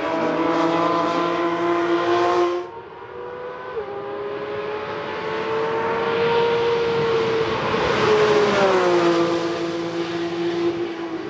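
Porsche 911 GT3 RS prototype's naturally aspirated flat-six engine at high revs on track. The first sound breaks off abruptly, then the car is heard approaching, growing loudest about two-thirds of the way through, and its pitch falls as it goes by and pulls away.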